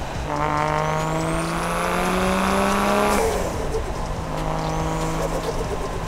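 Toyota Chaser Tourer V's turbocharged 1JZ inline-six pulling under boost. The engine note climbs steadily while the turbo's high whistle rises as it spools and then holds. About three seconds in, the throttle lifts and the note drops back suddenly, and near the end a shorter pull brings a brief whistle rise again.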